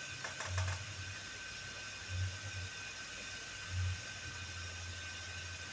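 A steady low hum that swells about every one and a half seconds, under a thin steady high tone, with a few faint clicks about half a second in.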